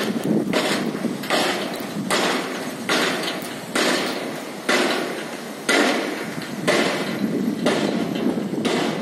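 Excavator-mounted pile driver driving a steel sheet pile: sharp metallic impacts about once a second, about ten in all, each ringing away before the next, over a steady mechanical noise.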